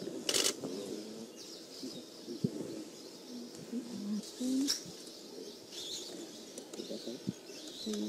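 Wild birds calling: doves cooing in short low phrases and smaller birds chirping. A brief burst of noise comes about half a second in.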